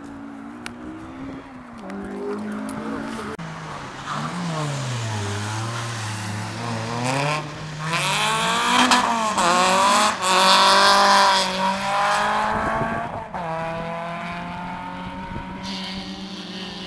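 Race car engine at full throttle on the circuit. Its pitch climbs and drops again with gear changes and lifts off the throttle, and it is loudest as the car passes closest, about eight to twelve seconds in.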